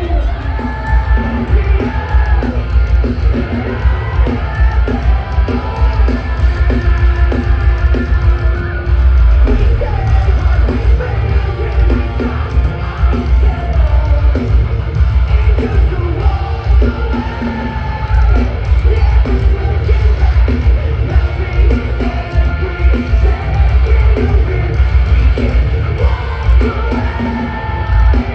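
Loud live rock music with a singer over heavy bass and steady drum hits. It cuts off suddenly at the end.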